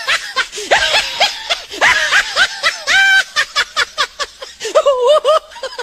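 Very high-pitched, cartoonish snickering laughter in quick short syllables, with sharp clicks in between.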